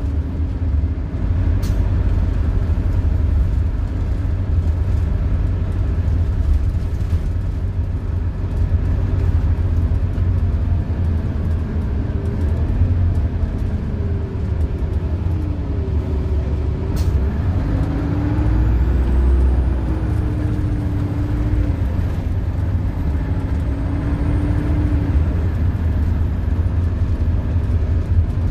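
Inside a diesel transit bus on the move: the Detroit Diesel Series 50 inline-four's low drone and road rumble, with the engine note rising and falling as the Allison automatic changes gear and the bus changes speed. Two sharp clicks, about two seconds in and past the middle.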